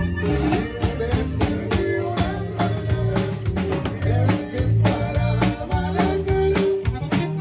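Recorded Mexican corrido music: plucked guitar-type strings over a steady beat, with singing in places.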